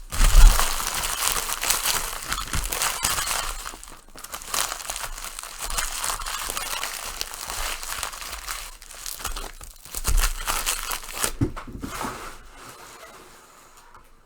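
Plastic trading card wrappers being crinkled and torn open by hand: a dense, crackly rustle that comes and goes, loudest at the start and again about ten seconds in, then dies away.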